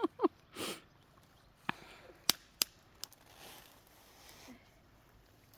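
A few sharp, isolated snaps of dry wood, four of them, spaced half a second to a second apart, after a short breathy sniff near the start.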